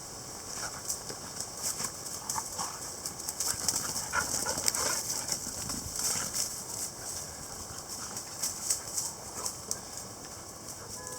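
Dogs playing: a quick, irregular run of light scuffles, paw-falls and rustles.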